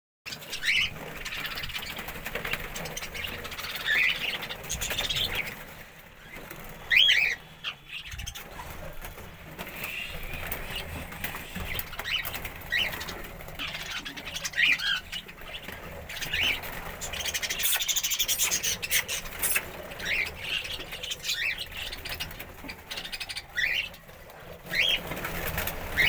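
Budgerigars chirping: short calls that rise and fall in pitch, one every second or two, with a louder call about seven seconds in.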